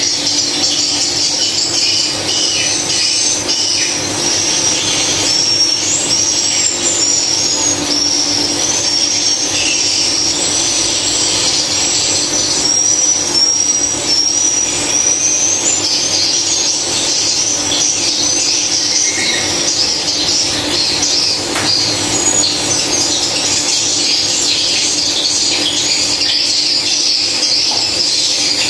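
Swiftlets twittering: a dense, unbroken chatter of high chirps with a steady low hum underneath.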